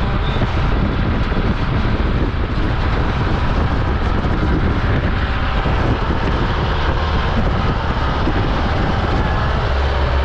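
Safari jeep driving over sand dunes: a steady, loud rush of engine and wind buffeting the microphone, heaviest in the low end.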